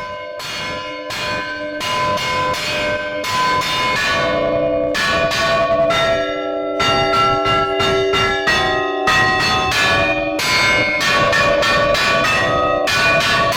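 Church bells ringing a joy peal: several bells of different pitches struck in quick succession, each left ringing on under the next. The strikes come faster for a couple of seconds around the middle.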